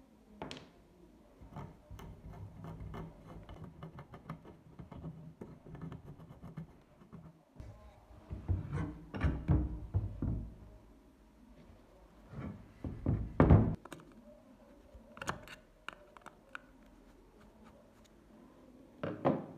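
Light clicks and scrapes of small hand tools working on a wooden Mauser Kar98k rifle stock, followed by several groups of dull knocks and thumps as the stock is tapped and handled. The loudest knock comes about two-thirds of the way through.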